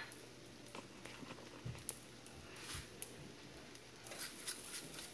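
Faint, scattered ticks and soft taps from a fork working mashed pinto beans in a frying pan, with a couple of dull knocks about two and three seconds in.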